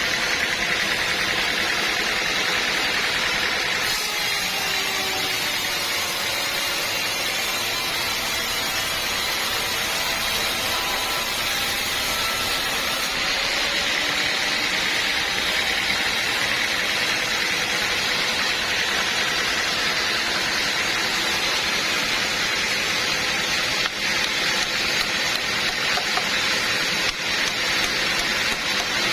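Sawmill machinery running with a steady, even mechanical noise that hardly changes.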